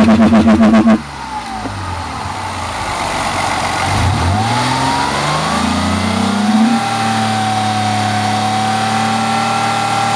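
Ford Mondeo 2.5 V6 engine running with a noise whose source the owner is asking about. A loud, rapid pulsing sound cuts off about a second in. The engine note then sinks, climbs from about four seconds in and holds steady at a higher pitch.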